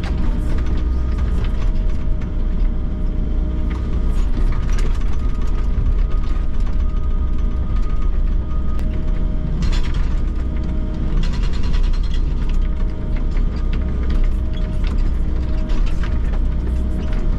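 Volvo excavator heard from inside its cab: the engine and hydraulics run steadily while its hydraulic breaker hammers concrete pipe piles in rapid bursts of blows. The blows come thickest a little past the middle.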